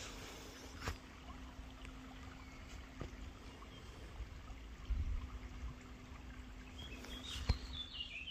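Quiet outdoor ambience: a low rumble with a few faint clicks. Near the end a bird sings a short run of high notes falling step by step in pitch.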